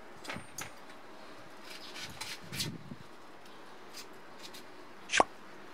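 Kitchen knife cutting through a peeled onion on a plastic cutting board: a few soft crunches and clicks, then one sharp tap of the blade on the board near the end.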